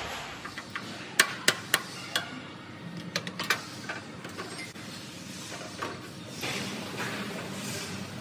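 Sharp metal knocks and clinks of steel airport-chair parts being fitted together by hand: four loud knocks about a second in, then a quicker cluster, followed by softer scraping of metal parts.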